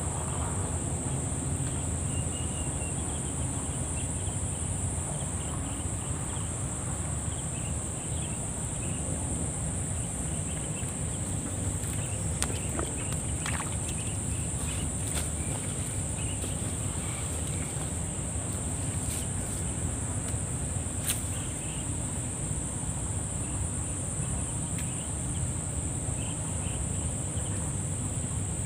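Steady high-pitched insect chorus, a continuous drone, over a low rumble, with a few sharp clicks in the middle.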